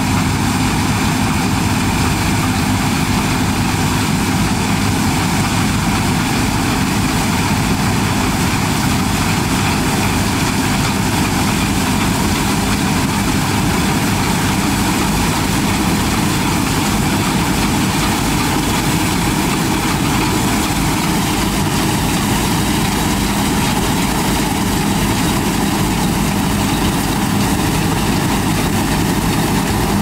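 Combine harvester running steadily while threshing rapeseed: a loud, even engine and machinery drone that holds the same pitch throughout.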